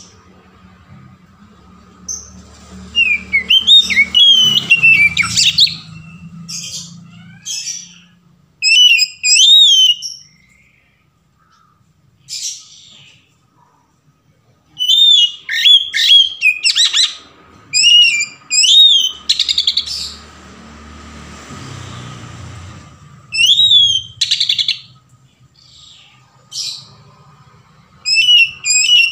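Oriental magpie-robin (kacer) singing its varied 'ngeplong' song: loud whistled phrases of rising and falling notes in repeated bursts with short pauses between them. A low background rumble runs under the song for the first few seconds and again around twenty seconds in.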